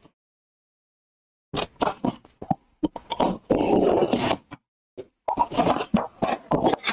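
A blade slicing along the taped seam of a cardboard shipping case, with rasping scrapes, then the cardboard flaps being pushed open with rustling and rubbing. It starts about a second and a half in, and the longest scrape comes around the middle.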